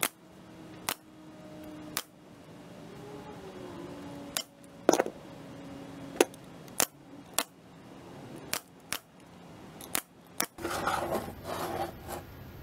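Nail gun firing about a dozen sharp shots at uneven intervals, driving nails into a wooden sign frame, followed near the end by a brief scraping shuffle.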